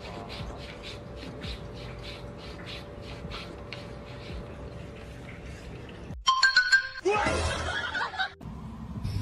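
Cat lapping water from a glass, a steady run of quick soft laps, several a second. About six seconds in this stops abruptly and gives way to a short run of clear tones and then a louder, noisier sound.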